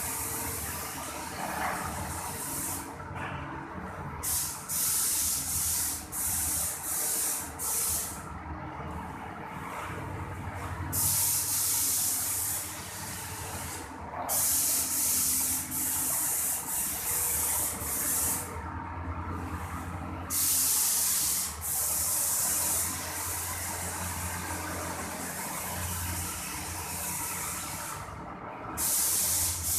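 Paint sprayer's gun hissing as it sprays wall paint, cutting off briefly several times as the trigger is released and pulled again, over the steady low hum of the machine's pump motor.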